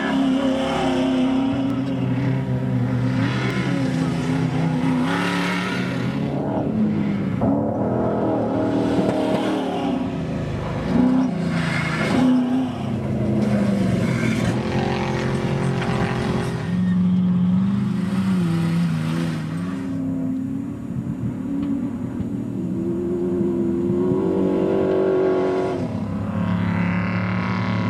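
Off-road race trucks running flat out on a desert course, their engines revving up and down through gear changes. Several swells of rushing noise come and go as trucks pass one after another.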